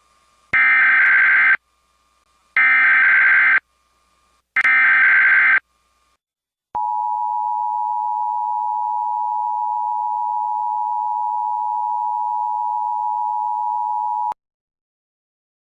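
Emergency Alert System opening: three one-second bursts of buzzing SAME header data tones, a second apart, then the steady two-tone EAS attention signal sounding for about seven and a half seconds before cutting off.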